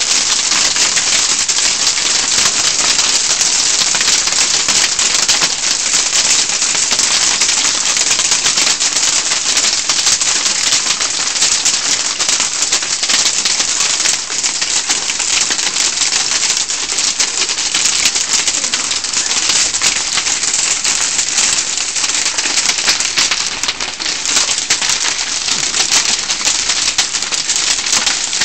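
Heavy hailstorm with large hailstones pelting the garden: a loud, dense, steady clatter of countless small impacts that keeps up without a break.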